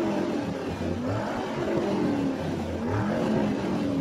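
Car engine revving in repeated blips, its pitch rising and falling about three times.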